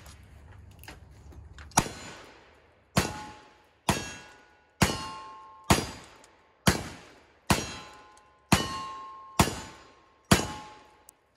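Ten black-powder shots from Pietta Great Western single-action revolvers in .38 Special, about one a second. Each shot is followed by the ringing clang of a steel target being hit.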